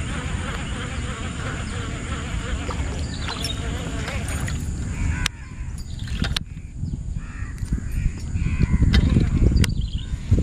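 Birds calling outdoors, including crow-like caws, over a low rumble. The background drops suddenly about halfway, and a few sharp clicks follow.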